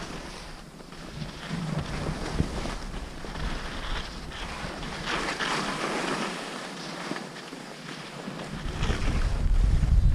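Edges hissing and scraping over packed snow while riding down a run, with wind rushing across the microphone. The deep wind rumble drops away soon after the start and comes back near the end.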